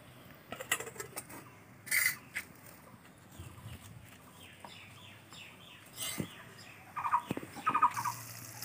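Chickens clucking in short repeated bursts, coming more often near the end, among light clicks and scrapes of a metal spatula turning aubergine frying in a steel wok.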